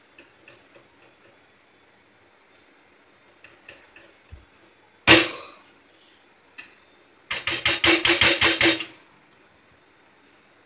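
A metal utensil striking an aluminium pan while boiled vegetables are mashed for pav bhaji. There are soft taps, then one loud clang about five seconds in, then a quick run of about ten clanks over a second and a half.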